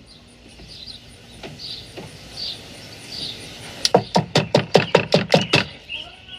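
A police officer rapping fast on a front door, about ten sharp knocks in under two seconds, starting about four seconds in, over faint background music.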